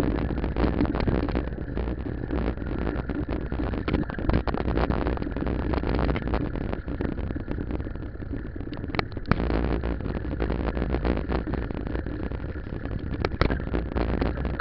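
Ride noise from a camera mounted on a moving bicycle: a steady rumble of tyres on rough asphalt and gravel, with wind on the microphone and constant small rattles from the mount, plus a couple of sharper clicks about nine and thirteen seconds in.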